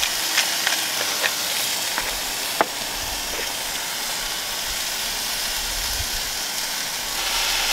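Venison smash burger patties sizzling hard in an oiled skillet on a portable gas camp stove turned up to high heat. The frying makes a steady hiss, with a few light clicks in the first couple of seconds.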